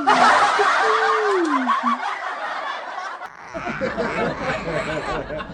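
People laughing, several voices at once, with a second stretch of laughter after a short break a little over three seconds in.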